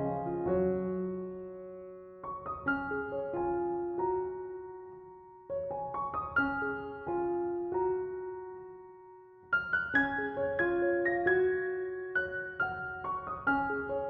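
Background piano music: gentle phrases of struck notes that ring and fade away, with a new phrase starting every three to four seconds.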